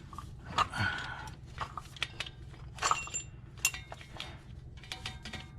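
Scattered small clicks and brief metallic clinks of wiring and hand tools being handled, over a steady low hum.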